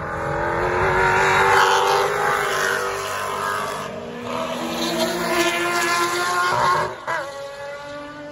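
A pack of 1970s and 80s touring race cars passing one after another at racing speed, engines at high revs with their pitch sliding down as they go by. The sound is loudest about a second and a half in, swells again as more cars come past, and falls away sharply near the end.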